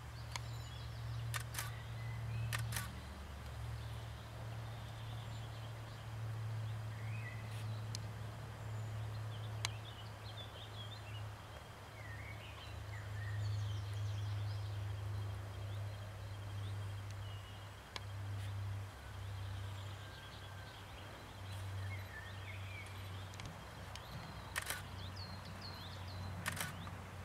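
Camera shutter clicking a handful of times, several in quick pairs, as close-up photographs are taken. Small birds chirp throughout, over a steady low rumble.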